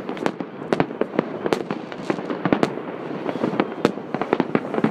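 Many fireworks going off at once across a city: an irregular stream of sharp bangs and pops over a continuous rumble of bursts.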